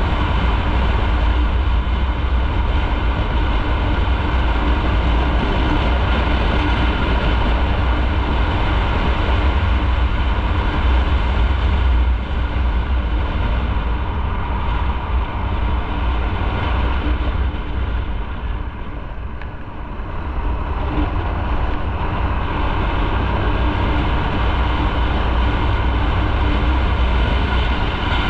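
Motorcycle on the move: steady engine note under a heavy rush of wind on the microphone, dropping in level for a couple of seconds about two-thirds of the way through before picking up again.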